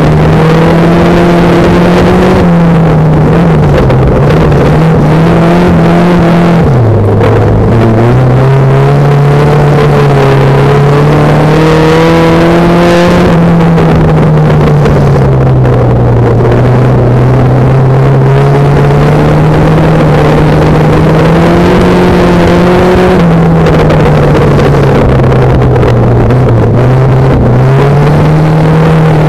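Banger racing car's engine heard from inside its stripped cabin, running hard with the revs rising and falling as it drives round the shale track. The revs drop sharply about seven seconds in.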